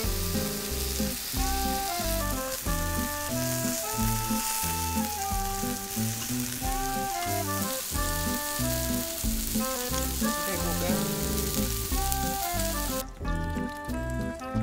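Pork belly sizzling as it fries on a round black griddle pan, with background music playing over it. The sizzling drops out about 13 seconds in, leaving the music.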